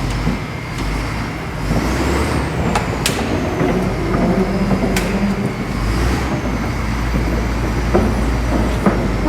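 Heavy diesel construction equipment running steadily with a deep rumble while pushing a dead machine, with a few sharp metallic clicks and a faint high squeal of steel parts under strain.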